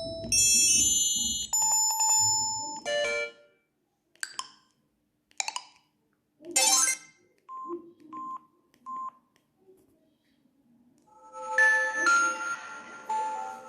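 Samsung SGH-C170 mobile phone playing ringtones: an electronic melody stops about three seconds in, three short chime-like sounds and three short beeps follow, and a new ringtone melody starts near the end.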